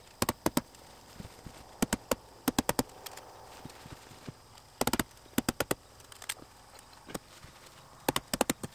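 Hammer stapler striking, driving staples through woven house wrap into wooden wall studs: sharp knocks in quick runs of two to four, with short pauses between.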